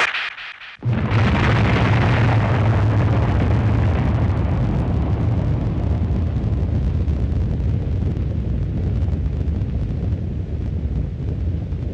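Atomic bomb explosion sound effect: a brief noise at the start, then a loud blast about a second in that runs on as a long, low rumble, slowly easing off.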